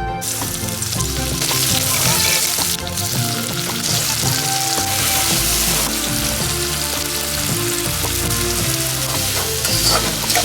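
Food sizzling in hot oil in a pan, starting abruptly just after the start as it goes in and carrying on steadily. Background music plays underneath.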